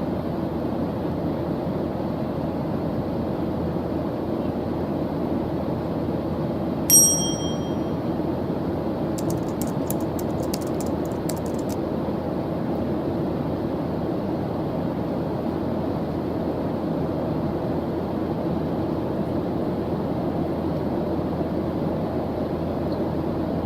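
Steady white-noise background with a single bright bell-like ding about seven seconds in, followed two seconds later by a quick run of faint ticks.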